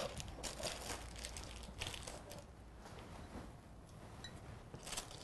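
Serrated knife sawing through a slab of baked oat-and-seed muesli bar on baking paper: a few short, faint crunching scrapes.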